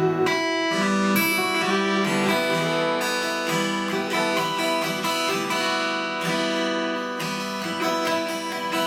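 Acoustic guitar strumming chords in an instrumental passage between sung lines of a song.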